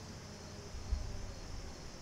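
Quiet woodland ambience: a steady high hiss of insects, with a brief low rumble on the microphone about a second in.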